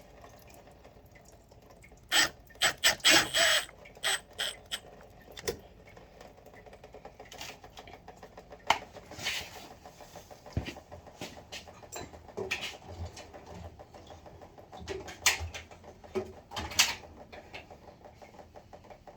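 Hand tools clicking and scraping on the radiator hose clamps of an ATV engine. A burst of quick metallic clicks comes about two seconds in, followed by scattered small clicks and rustles.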